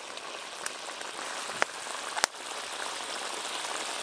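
Thick potato-and-taro curry simmering in an iron kadai over a crackling wood fire: a steady crackly fizz, with two sharp pops about halfway through, the second louder.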